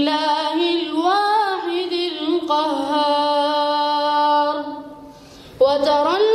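A boy reciting verses of the Holy Quran in a melodic chant into a microphone, holding long drawn-out notes, with a short pause for breath about five seconds in.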